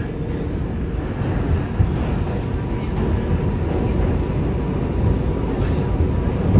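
R211A subway car running between stations, heard from inside the car: a steady rumble of wheels on rail and running gear, with a faint steady whine.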